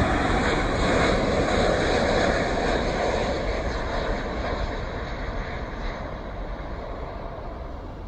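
Jet airliner's engines roaring as it passes low on final approach, loud at first and fading steadily as it moves away and touches down on the runway.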